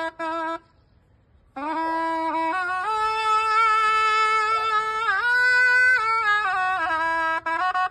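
Shehnai-type reed pipe with a flared brass bell playing a reedy melody. A few short notes, a pause of about a second, then long held notes that climb and dip in pitch around five seconds in, step back down, and break into short notes near the end.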